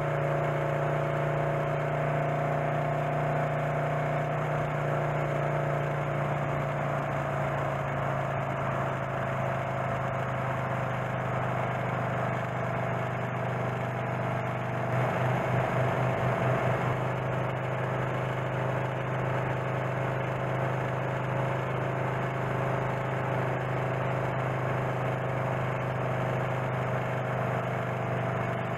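A 1928 Norton motorcycle's J.A.P. engine runs steadily at road speed. About halfway through, the note swells and pulses for a couple of seconds, then settles back to its steady running.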